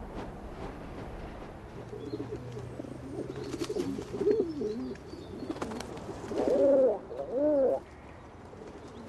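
Domestic pigeons cooing: a run of soft coos, then two louder rolling coos in the second half.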